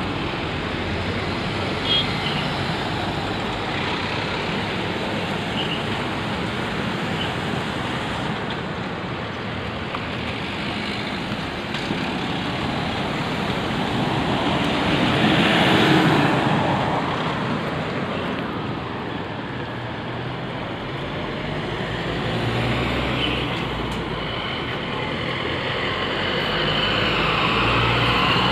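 Street traffic noise as vehicles move slowly along the road, one pass swelling loudest about halfway through and another building near the end.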